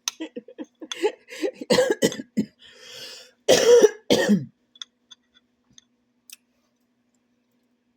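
A person coughing and clearing their throat, a run of short coughs with the hardest ones about two and three and a half seconds in, then a few faint clicks.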